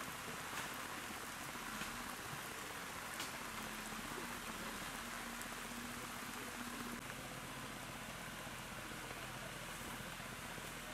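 Steady rain falling, with occasional single drops clicking close by.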